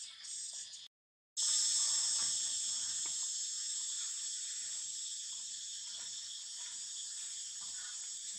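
Steady, high-pitched drone of an insect chorus in the forest, with a brief cut to silence about a second in, after which it comes back louder. Faint rustles and ticks of dry leaf litter underneath.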